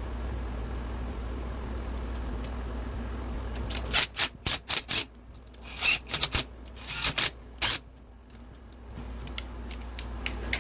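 A steady low hum, then from about four seconds in a string of sharp clicks and clinks of hand tools and small metal engine parts being handled during a motorcycle engine teardown, in quick clusters with short pauses between.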